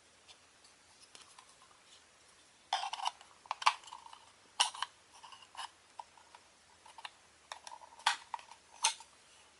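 Small hard plastic parts being handled: irregular clicks and light rattles, starting about three seconds in.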